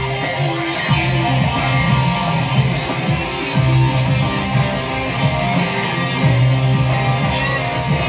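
Electric guitar playing in loud, steady music, over long held low notes and a steady ticking beat.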